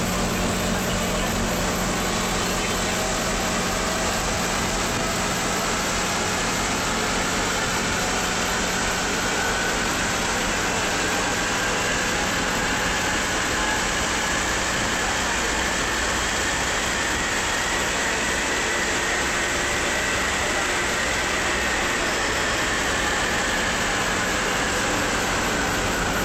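Inside the car of a Santiago Metro NS-74 rubber-tyred train running through a tunnel: a steady rolling rumble. Over it, a whine rises in pitch as the train gathers speed and falls near the end as it slows into the next station.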